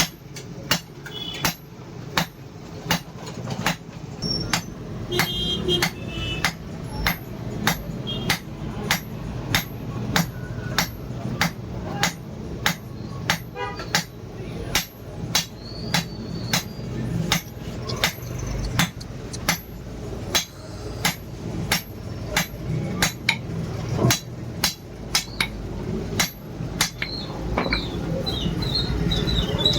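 Steady, regular hammer blows, a little under two a second, forging steel from an old truck leaf spring, with a steady low hum underneath.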